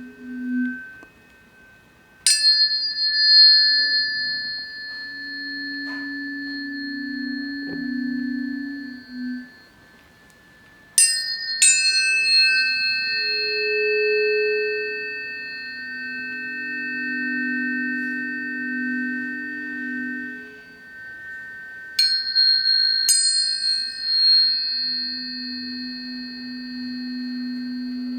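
Planetary tuning forks struck five times (once about two seconds in, twice near the middle and twice near the end), each strike leaving clear high tones that ring on for many seconds and overlap. Lower tones swell and fade underneath.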